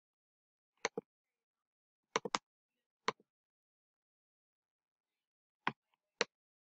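Computer mouse clicking: about eight sharp clicks, including a quick pair about a second in and a rapid run of three a little after two seconds, with dead silence between.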